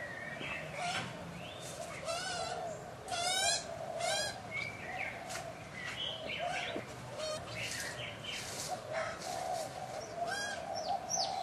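A mixed chorus of birds calling: a steady chatter of soft, wavering calls with sharper chirps and quick warbling trills over it, one trill loudest about three seconds in.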